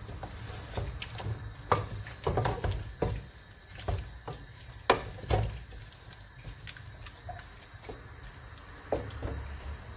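Wooden spoon stirring raw beef chunks and chopped onions in a stone-coated nonstick pot, with irregular knocks and scrapes of the spoon against the pot and the wet shifting of the meat. The strokes come thick in the first half and thin out after about six seconds.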